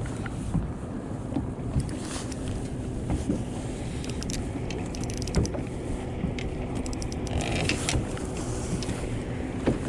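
Boat on the water with a steady low motor hum and wind buffeting the microphone, broken by a few light clicks and knocks.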